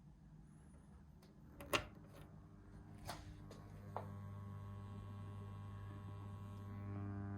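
A few sharp clicks as the plug of a stereo trigger cable goes into its jack, the loudest about two seconds in. From about four seconds in, the connection lets a steady electrical hum with buzzy overtones into the audio, and it grows louder near the end.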